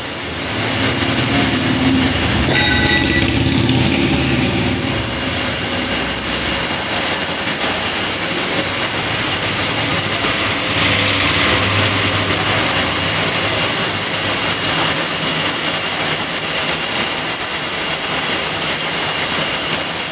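Large heavy-duty Raghbir engine lathe turning a big metal workpiece, its drive and the cutting tool giving a loud, steady machine noise as the tool peels curled chips off the job. A brief higher ringing tone sounds a little over two seconds in.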